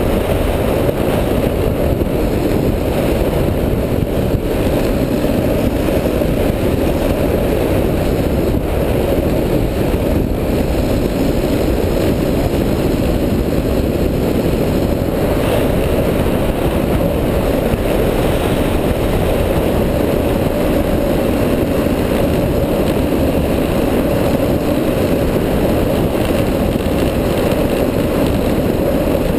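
Street luge running downhill at speed: a loud, steady, deep rush of wind buffeting the helmet-mounted camera, mixed with the urethane wheels rolling over the asphalt.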